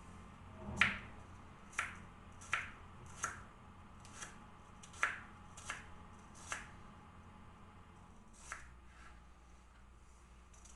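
Light clicks and taps of household objects being handled, about ten of them irregularly spaced, the loudest about a second in, over a faint low hum.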